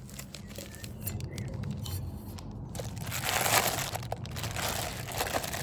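Plastic packaging crinkling and rustling as the cook-set parts are handled, with light clicks early on giving way to a louder, dense rustle from about halfway in.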